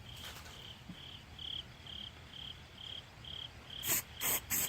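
A cricket chirps steadily at about two chirps a second. Near the end come three short hissing bursts of an aerosol can of silicone lubricant, sprayed into a car door-handle opening.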